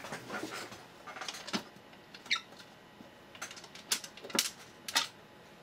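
Plastic enclosure lid being prised off by hand, creaking and clicking. A short squeak comes about two seconds in, and several sharp snaps follow in the second half as the lid comes free.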